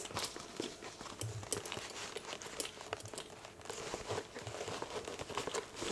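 Handbag organizer being pushed and worked into a small structured leather handbag: soft rustling and scraping with many small taps and knocks.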